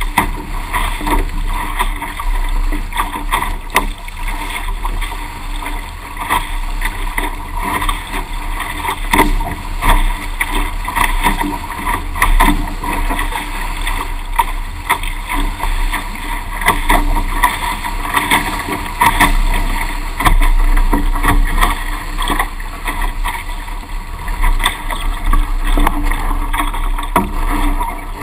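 Water rushing and splashing against the hulls of a Weta trimaran sailing fast, with many small irregular splashes. It is heard close to the water through a GoPro's waterproof housing.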